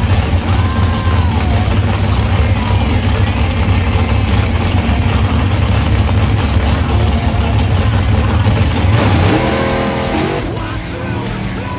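A Super Gas drag roadster's engine running with a loud, heavy low rumble while staged on the starting line. Near the end its pitch climbs as the car launches, and the sound falls away as it pulls off down the track.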